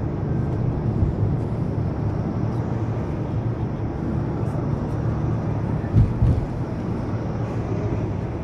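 Steady engine hum and road noise heard from inside a moving vehicle, a low drone, with two short thumps about six seconds in.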